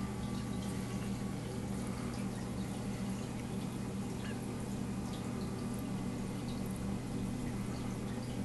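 Reef aquarium equipment running: a steady low pump hum, with water trickling and dripping from the hang-on-back refugium and skimmer.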